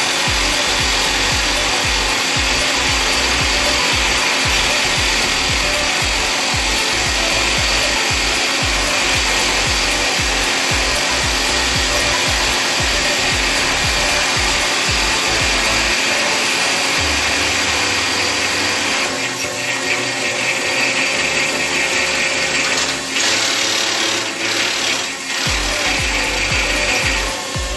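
Resemin Raptor 55 long-hole drilling rig's hydraulic rock drill boring a 64 mm hole in rock: a loud, steady noise with a deep pulsing underneath. The pulsing drops out a little over halfway through, and the sound then dips and breaks up several times near the end.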